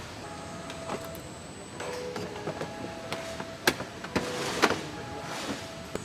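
Car assembly-line factory noise: scattered metallic clicks and knocks, two of them sharper a little past the middle, over a steady hum, with short steady machine tones starting and stopping.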